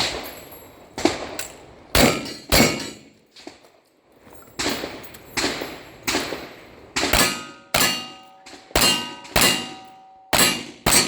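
A rapid string of about a dozen gunshots, each followed by the ringing clang of a steel target being hit, in a quick rhythm with a short pause about four seconds in, typical of a cowboy action shooting stage.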